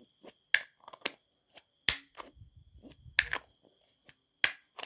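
Slime being squeezed and worked by hand, giving sharp, irregular pops and clicks, about ten in all, with a brief low rumble near the middle.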